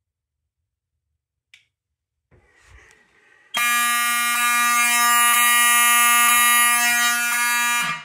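Wheelock 7002 mechanical fire-alarm horn sounding continuously: a loud, steady, buzzy tone that starts about three and a half seconds in and cuts off abruptly just before the end as the alarms are silenced.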